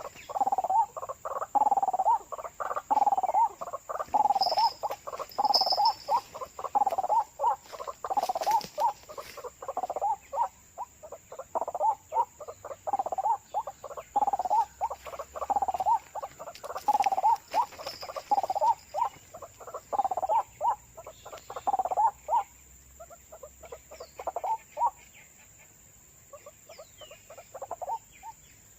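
White-breasted waterhen (ruak-ruak) calling: a repeated croaking note at about two a second, the 'wak-wak' call. It grows sparser and fades out over the last few seconds.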